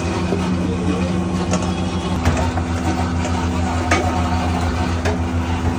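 Steady low mechanical hum, like an idling engine or motor. Over it come a few light clinks of a steel spoon against a steel bowl.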